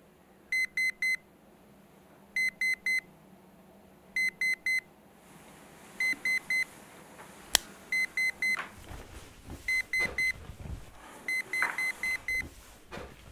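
Digital alarm clock beeping: groups of four quick, high beeps repeating about every two seconds, seven groups in all. A single sharp click comes about halfway through, followed by the shuffling of someone moving in bed.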